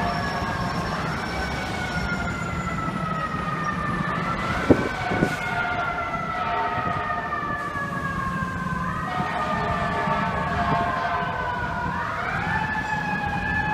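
Fire engine siren wailing: the pitch climbs quickly, then slides slowly down over several seconds, again and again, over a steady low rumble of street traffic. A brief sharp knock about five seconds in.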